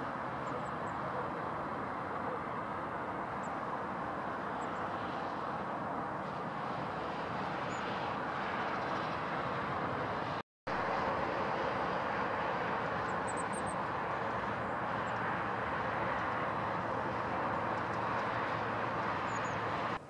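Steady drone of distant engine noise, with a few faint high chirps; the sound drops out for a split second about halfway through.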